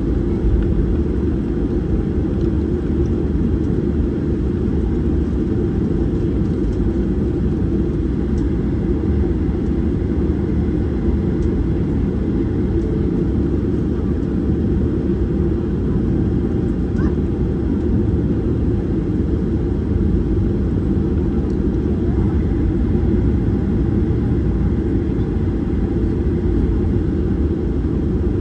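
Steady cabin noise of a Boeing 737-800 with its CFM56-7B engines running: an even, unchanging low rumble of engines and airflow.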